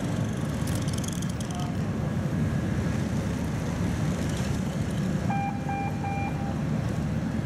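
Wind rumbling and buffeting on the microphone on an open ship's deck, a steady low noise throughout. About five seconds in comes a quick run of four short, high-pitched beeps.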